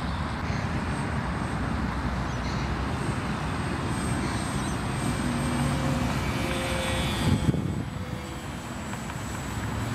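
HobbyKing Bixler model plane's electric motor and propeller buzzing faintly as it flies overhead, under a steady low rumble. A brief bump about seven seconds in.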